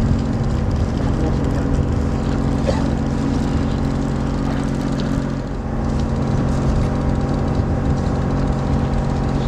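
Party fishing boat's engine running steadily, a constant low drone heard on deck.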